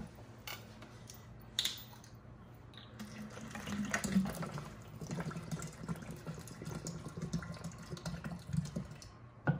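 Blended mango drink pouring from a blender jar into a larger container: a splashing liquid stream from about three seconds in, with a couple of knocks of the jar before it and one near the end.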